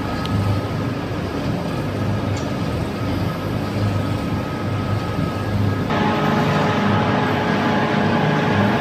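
Wood sawdust pellet production-line machinery running steadily: a continuous low rumble with a few steady whining tones. At about six seconds the mix changes and new steady tones come in.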